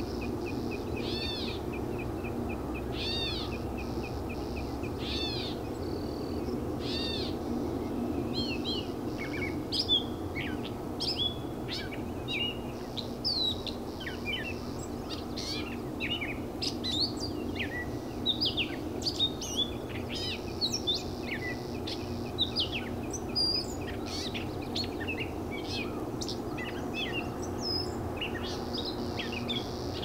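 Gray catbird giving its cat-like mewing call, repeated about every two seconds for the first several seconds, then breaking into a long, rambling song of short, varied squeaky notes.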